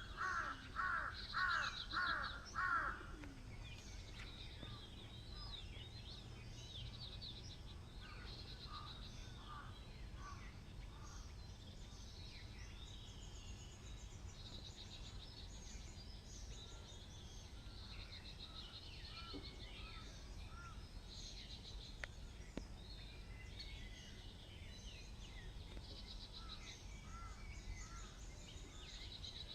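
Morning birdsong: a run of about five loud repeated calls in the first three seconds, then many overlapping chirps and trills from several birds over a steady low background hum.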